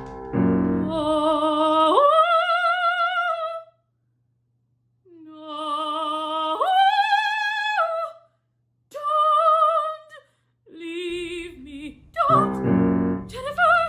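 A woman singing in an operatic style, holding long notes with a wavering vibrato. Several phrases leap upward to a higher held note and are split by short silences. Piano chords sound at the start and again near the end.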